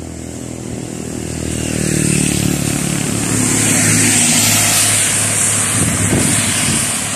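A truck passing close by on a wet road: its engine hum and the hiss of tyres on wet asphalt build up, are loudest about four seconds in, then fade as it moves away.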